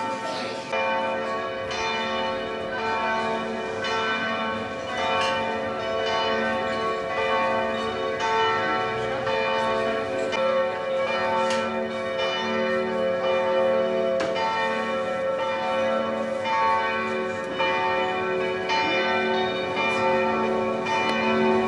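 Several church bells pealing together, struck again and again, their long ringing tones overlapping. The peal cuts off abruptly at the end.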